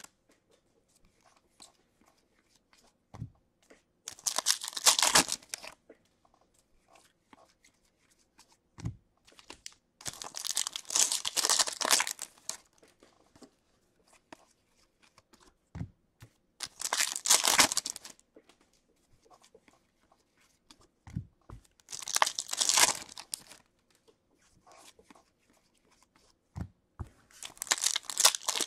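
Foil wrappers of hockey card packs being torn open one after another: a crinkling rip roughly every six seconds, five in all. A soft low knock falls between each pair of rips.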